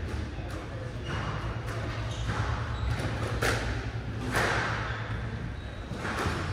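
Squash ball hits against rackets and court walls, about seven irregular echoing knocks, over a steady low hum of the hall.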